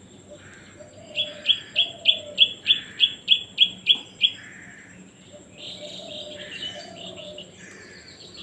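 Baby crow begging calls: a quick run of about a dozen short, high calls at about three a second, then a denser stretch of overlapping calls a couple of seconds later, the sound of a hungry chick asking to be fed.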